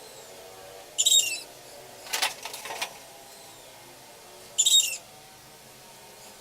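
Two short, high bird calls about three and a half seconds apart, with a brief rattle of clicks between them.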